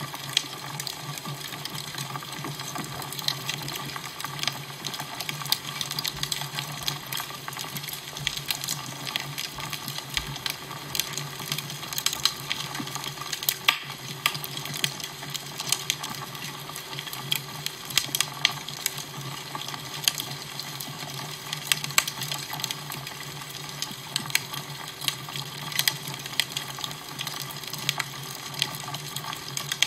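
Crackling fire: a steady hiss with frequent, irregular sharp pops and snaps.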